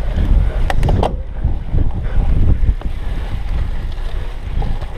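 Wind buffeting an action camera's microphone while a cyclocross bike rattles over bumpy grass and dirt, a heavy rumbling noise with a few sharp knocks about a second in.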